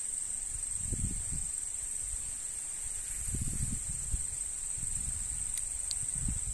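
Steady, high-pitched insect chorus, with low rumbles and thuds now and then.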